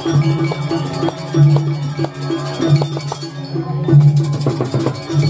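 Balinese gamelan playing a Jauk dance piece: ringing struck metal notes over kendang drum strokes.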